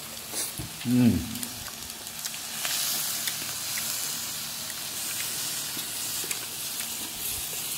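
Beef sizzling on a hot tabletop grill pan: a steady frying hiss with small ticks and pops. A short voice-like sound falling in pitch cuts in about a second in.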